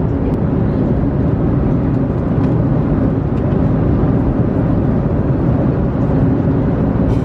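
Cabin noise of a jet airliner in flight: a steady low rumble that does not change.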